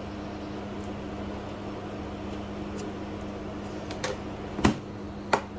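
Steady hum of a running kitchen appliance, with three sharp knocks about half a second apart near the end.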